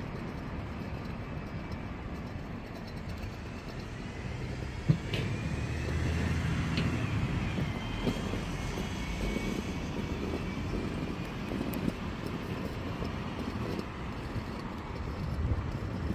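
City street traffic noise, with a large vehicle's engine running louder through the middle stretch along with a faint whine. A single sharp click sounds about five seconds in.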